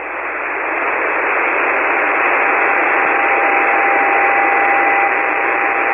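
Ham radio receiver on single-sideband in the 40-metre band, giving steady band noise hiss between transmissions, with faint steady whistles of carriers in it.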